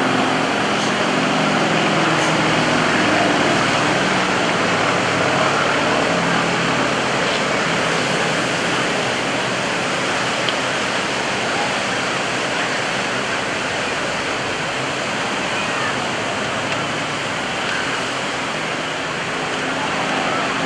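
A steady rushing hiss of wind and surf noise, with the drone of an aerobatic trainer's radial engine and propeller coming through faintly in the first few seconds and again near the end.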